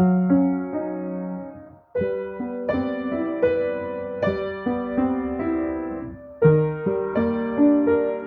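Piano music: a slow, gentle melody of sustained notes, with a short pause about two seconds in before the playing resumes.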